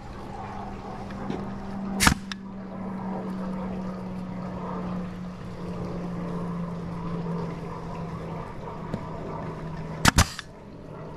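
Power staple gun firing staples through the edge of artificial turf into the border: one sharp shot about two seconds in, and a quick double shot near the end. A steady low hum runs underneath.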